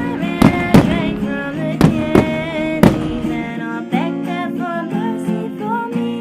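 Music with guitar and a singing voice, with about five sharp firework bangs over it in the first three seconds.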